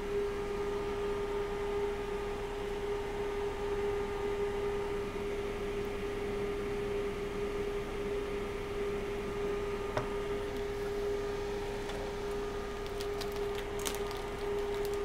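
A steady hum held at one pitch, with a single tick about ten seconds in and a few faint clicks near the end.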